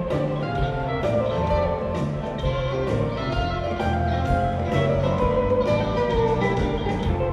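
Live rock band playing: electric guitars and bass over a drum kit with regular cymbal strokes, and keyboards.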